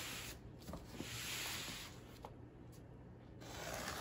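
Large cardboard shipping box being pushed and slid across a rug: a soft scraping with a couple of light knocks, easing off past halfway and picking up again near the end.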